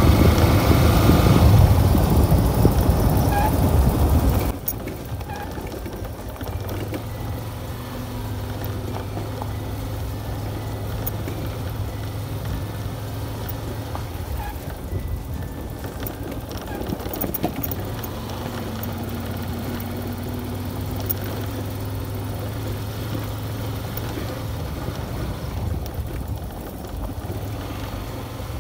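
Motorcycle ride heard through a helmet-mounted phone: wind rushing over the microphone with the engine under it, then from about four and a half seconds in a quieter, steady low engine drone.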